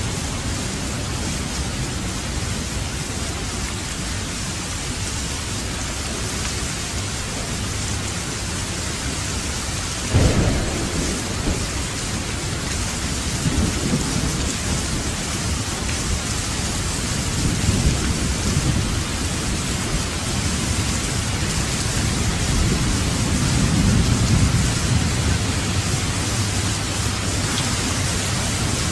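Heavy rain falling steadily in a thunderstorm, with a sudden clap of thunder about a third of the way in followed by several rolling rumbles of thunder.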